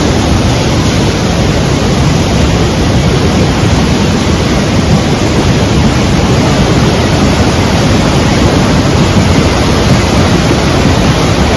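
Torrential rain from a cloudburst, a loud, steady, even rush of falling water with no breaks.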